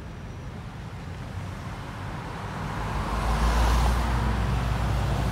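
Road traffic moving off across a railroad crossing. A pickup truck drives past close by about three seconds in, and its engine rumble and tyre noise grow loud.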